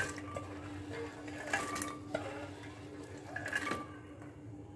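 Soaked dried peas poured into an aluminium pressure cooker in several short pours, clattering onto the pot and the peas already in it, with a little water trickling in.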